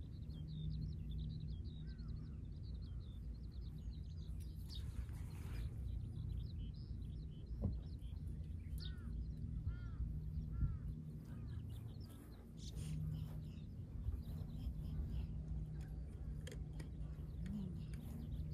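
Outdoor ambience: small birds chirping repeatedly over a steady low rumble of wind, with a brief rustle about five seconds in.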